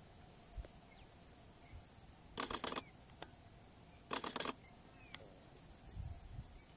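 Two short bursts of a camera shutter firing in rapid succession, about two and a half and four seconds in, with a couple of single clicks between them. Faint short high chirps sound in the quiet background.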